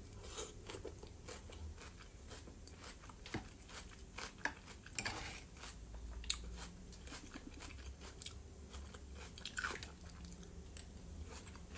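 Close-miked chewing of a mouthful of fresh vegetable salad, with soft crunches and wet mouth sounds, and a few light clicks of the fork in the bowls.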